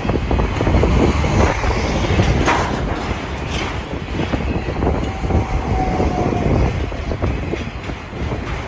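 Freight train's autorack cars rolling past at a grade crossing: steel wheels clattering and knocking over the rail in a steady, dense run. A brief thin tone rises above it about five seconds in.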